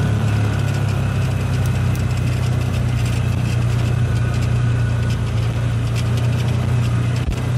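A vehicle engine running steadily at low speed, a constant low hum.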